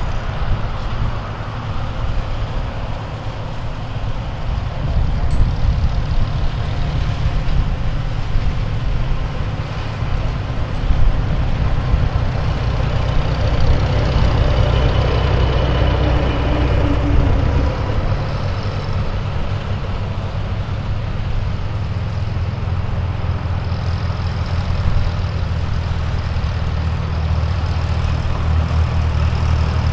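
Vintage farm tractor engine running steadily, a deep even hum throughout.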